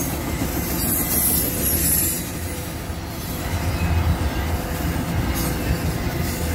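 Train rolling past on the rails: a steady, loud rumble of wheels on track.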